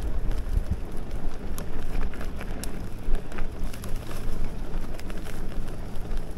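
Electric mountain bike rolling over a rough track: steady tyre noise with many scattered clicks and rattles, over a low rumble of wind on the microphone.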